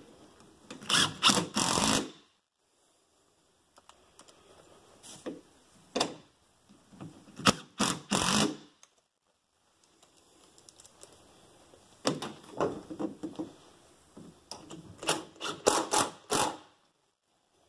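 Cordless Makita impact driver driving door-hinge screws in about five short bursts of rapid hammering clicks, with pauses between. The screws are going into repaired, formerly stripped holes and are tightening.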